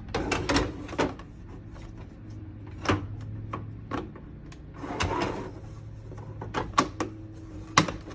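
Diorama wall pieces being handled and fitted together: a series of irregular short knocks and clicks, several of them close together near the end.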